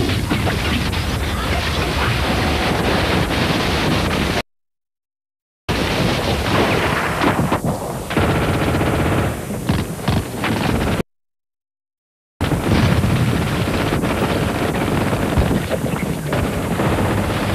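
Dense gunfire with rapid machine-gun shots, in three stretches, each cut off abruptly by over a second of dead silence.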